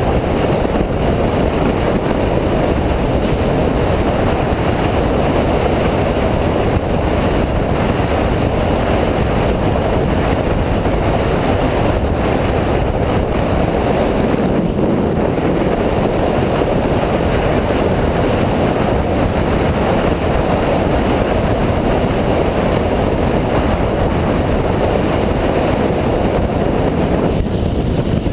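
Steady, loud rush of wind buffeting the microphone over the running noise of a moving dirt bike, a dense rumble with no breaks.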